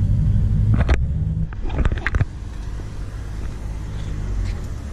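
Car engine running with a steady low drone, heard from inside the car. A few sharp knocks come around two seconds in, after which the engine sound drops to a quieter low rumble.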